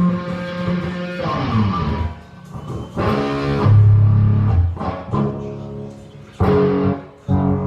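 Electric guitar being played: held notes and chords, a sliding run downward a little over a second in, a loud low note held around the middle, and two sharply struck chords near the end.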